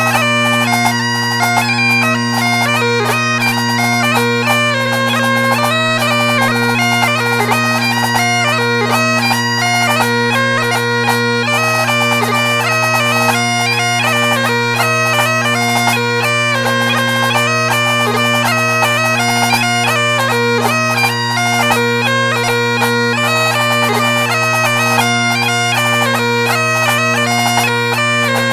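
Great Highland bagpipe playing a tune: steady drones under a quick-moving chanter melody.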